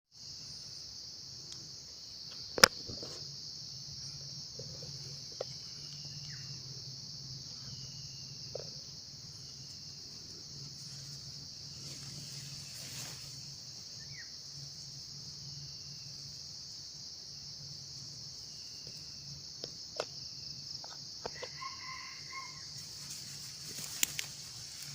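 Steady high-pitched drone of insects, with one sharp loud click about two and a half seconds in and a few faint, short falling notes scattered through.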